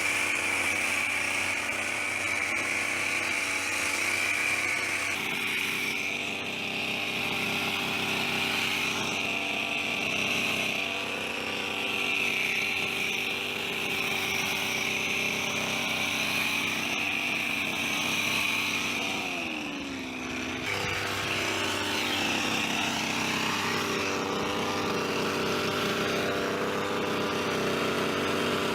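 Petrol hedge trimmer's small engine running steadily at high speed. About twenty seconds in the engine note falls and dips briefly, then it picks up again and runs on.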